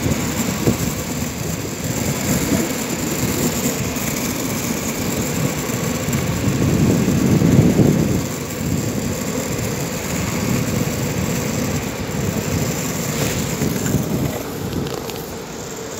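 Steady rumbling road noise of wheels rolling along an asphalt street, swelling for a moment about eight seconds in.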